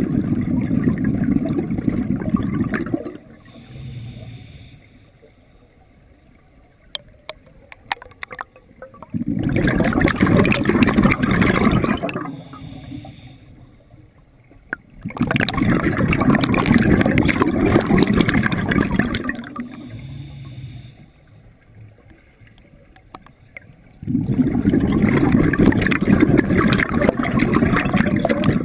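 Scuba diver breathing underwater: loud rushes of exhaled bubbles lasting a few seconds each, four times, with quieter stretches between breaths.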